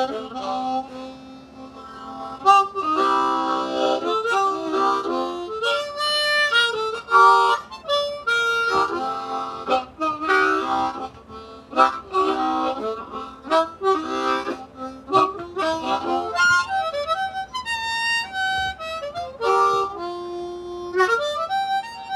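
Easttop Lightning diatonic harmonica in low F being played, with chords and single notes in a continuous run. In the second half some notes bend and glide in pitch.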